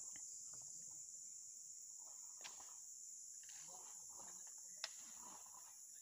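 Faint steady high-pitched insect chorus, with faint distant voices and a sharp knock a little before the end.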